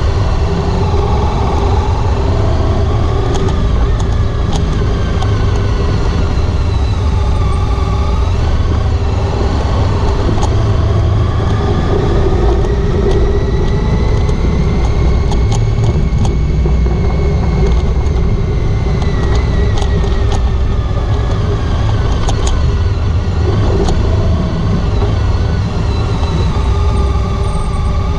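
Honda ST1300 Pan European motorcycle being ridden, its V4 engine running under a steady heavy low rumble, the engine's pitch rising slowly to a peak around the middle and falling away again.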